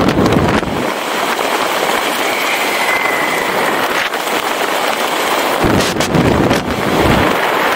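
Airflow of parachute canopy flight rushing over a helmet-mounted camera's microphone: a loud, steady rush of wind, with heavier buffeting gusts at the start and again about six seconds in.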